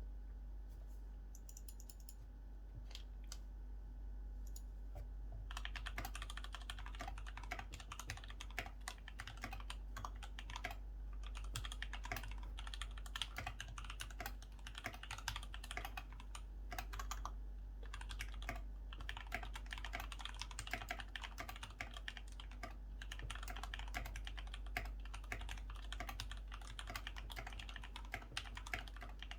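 Typing on a GK68X mechanical keyboard fitted with lubed Gateron White switches, double foam, and Keychron and PBT keycaps. A few scattered keystrokes come first, then continuous fast typing from about five seconds in.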